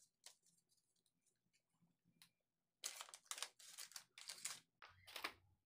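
Quiet handling of unboxing packaging: a few light clicks, then about two and a half seconds of crinkling and rustling in several bursts, fading out near the end.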